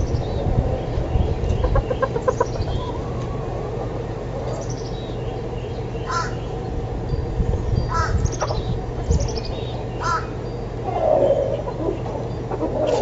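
Chickens clucking, with short calls every couple of seconds and a quick run of clucks early on. Small birds chirp high above them, over a steady low hum.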